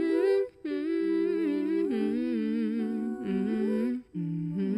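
Several voices humming slow, held notes in close harmony, a cappella. The hum breaks off briefly about half a second and four seconds in.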